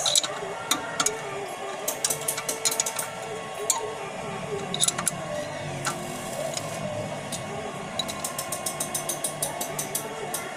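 Ratchet wrench clicking in quick runs of ticks, with a few single clicks between, as bolts are turned during an injector change on a V8 diesel truck engine.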